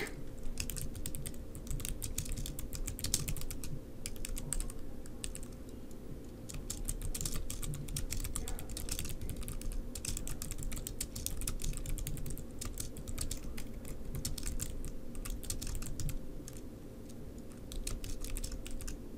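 Typing on a computer keyboard: quick runs of keystrokes with a few brief pauses.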